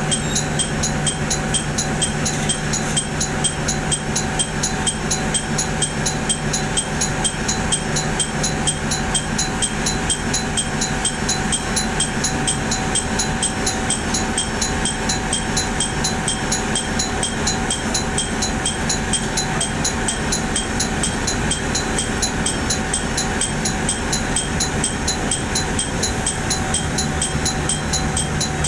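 Noto Railway diesel railcar idling steadily at a station stop, a constant low engine hum, with a fast, even high ticking of about three a second running alongside.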